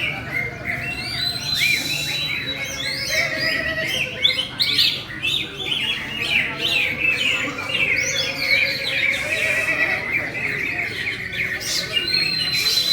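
Cucak ijo (green leafbirds) singing hard in a dense, overlapping chorus of rapid chirps, trills and whistles, over a low murmur of voices.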